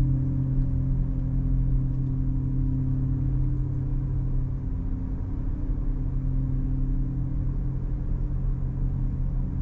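Steady low rumble of a car driving at an even speed: engine and road drone with no changes in pitch.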